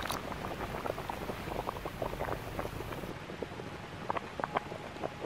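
Pot of spaghetti boiling on a small gas canister camping stove: a dense patter of little bubbling pops over a soft steady hiss, thinning slightly about three seconds in.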